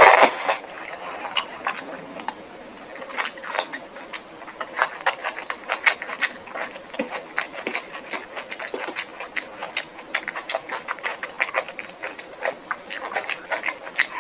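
Close-up eating sounds: chewing with many quick irregular clicks and smacks, and a louder burst right at the start.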